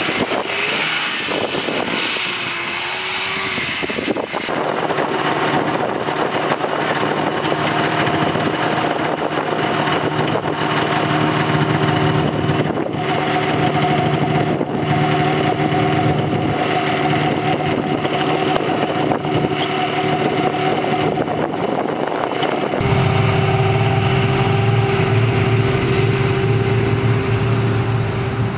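Engine sounds: a car engine pulling away at first, then a Polaris snowmobile engine running steadily, which turns deeper and louder about 23 seconds in as the sled moves off.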